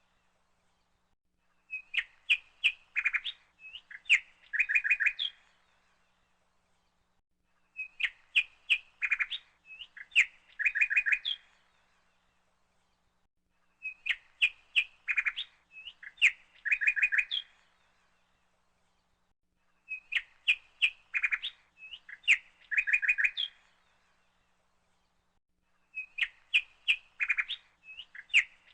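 Birdsong: phrases of rapid chirps and short trills, each about two seconds long, repeating almost identically about every six seconds with pauses between.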